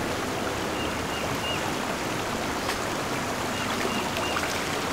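Small creek's running water, a steady, even rush.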